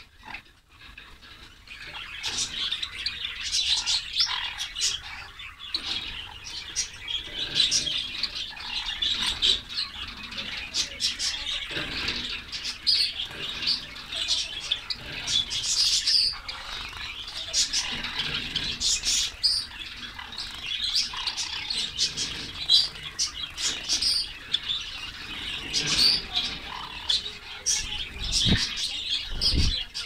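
White Java sparrows chirping: a busy run of short, high chirps from several birds, starting about two seconds in, with a brief low thud near the end.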